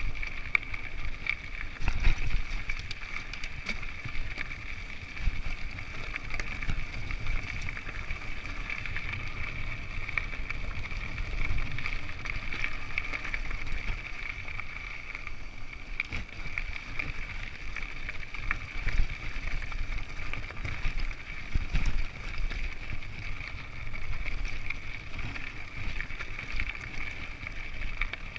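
Mountain bike rolling down rocky singletrack: tyres crunching over gravel and the bike rattling on frequent bumps, under rumbling wind on the microphone and a steady high buzz.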